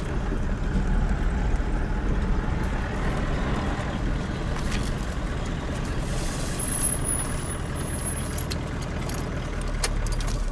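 A four-wheel drive driving slowly along a dirt track, heard from inside the cab: a steady low engine and tyre rumble, cutting off suddenly at the end.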